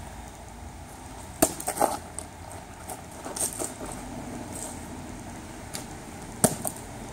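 A thrown plastic water bottle knocking sharply as it strikes and drops: two knocks about a second and a half in, lighter clatter a couple of seconds later, and one sharp knock near the end, over steady outdoor background noise.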